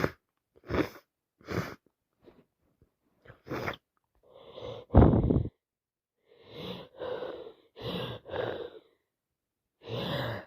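A woman with a heavy cold sneezing: several short, sharp breaths in, one loud sneeze about five seconds in, then more quick breaths close together as the next sneeze builds up.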